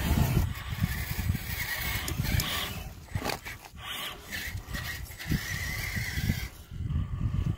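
RC crawler truck's electric motor and drivetrain whining as it drives, the pitch wavering with the throttle, over an uneven low rumble.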